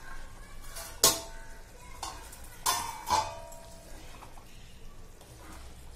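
Metal spoon stirring a pot of chole curry, with three ringing metallic clinks against the pot, about one, nearly three and a little over three seconds in.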